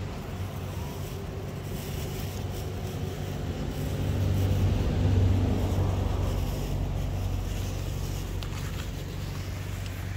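Low steady engine drone of a motor vehicle, growing louder about halfway through and then easing off.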